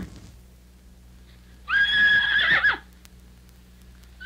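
Horse whinnies played from a 78 RPM record of farm-animal sounds: one whinny of about a second in the middle and another starting right at the end, over a faint steady low hum.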